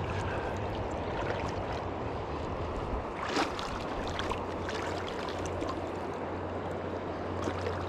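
Steady rush of flowing river water, with a few faint clicks and a brief louder splash-like sound about three and a half seconds in.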